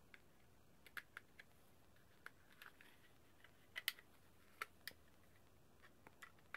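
Faint, scattered clicks and ticks of a screwdriver prying at the snap-fit plastic case of a Meanwell DR-15-5 DIN-rail power supply, the loudest just under four seconds in.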